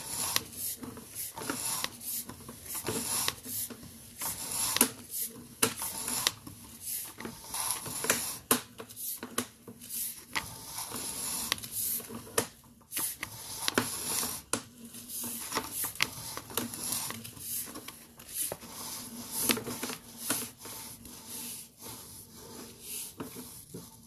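Sewer camera push-rod cable being pulled back out of the line: irregular rubbing, scraping and clicking.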